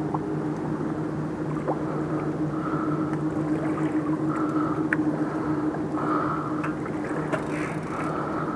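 Steady low mechanical drone like a running engine, with a fainter higher tone that swells about every two seconds and a few light clicks.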